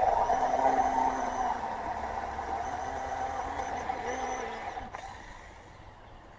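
Small battery-powered mini chainsaw with a 4-inch bar cutting into a pine trunk. Its electric motor and chain run with a steady whine whose pitch sags under load, then wind down about five seconds in.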